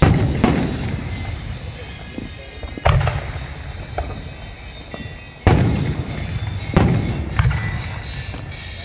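Aerial firework shells bursting in a series of booms, about six in all, the strongest at the start, about three seconds in and about five and a half seconds in, each trailing off into a low rumble.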